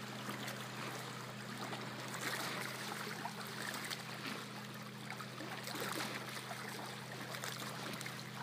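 Lake water lapping at the shore, a continuous wash with small scattered ticks, over a low steady hum.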